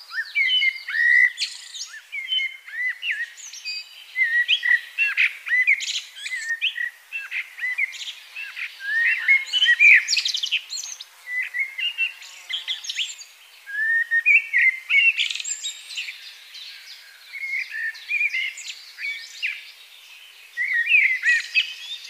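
Male common blackbird singing: a series of fluty whistled phrases with higher, squeakier notes mixed in, separated by short pauses.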